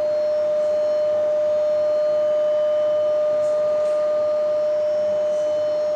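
Steady pure test tone from a loudspeaker driven by a phone function-generator app, sounding into a PVC resonance tube as a balloon-capped plunger is slid along it to find a resonance length. A fainter higher overtone fades out about three-quarters of the way through, and the tone grows slightly louder in the middle.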